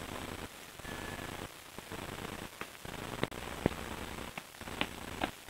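Steady hiss from a handheld camcorder's microphone, with a handful of light, sharp taps at uneven spacing through the second half.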